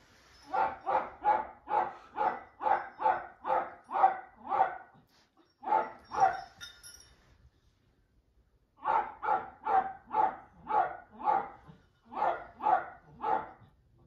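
Small shaggy dog barking rapidly, about two barks a second, in two runs with a pause of about two seconds in the middle.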